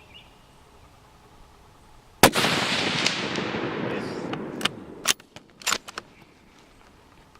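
A single unsuppressed shot from a Savage .223 rifle about two seconds in: a sharp crack followed by a long rolling echo that fades over about two seconds. A few sharp clicks follow, the rifle's bolt being cycled.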